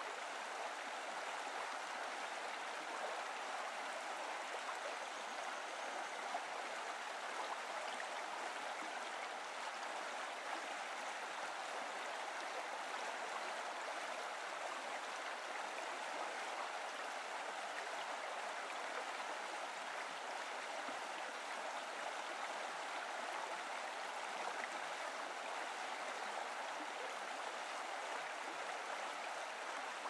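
Shallow stream running over stones and gravel: a steady, even rush of water.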